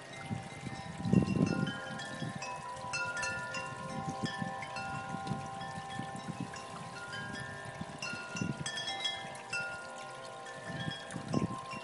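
Wind chimes ringing: many clear tones at different pitches, struck at irregular moments and ringing on over one another. Low rumbles sit underneath, loudest about a second in.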